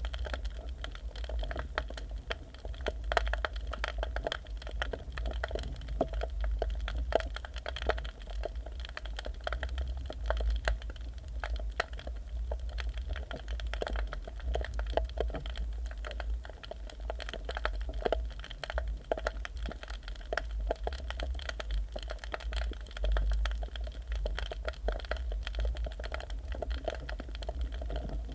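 Underwater ambience picked up by a submerged camera: a steady dense crackle of tiny clicks over a low rumble.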